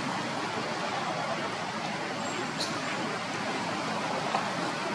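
Steady outdoor background noise with no distinct events, and a faint short high chirp about two and a half seconds in.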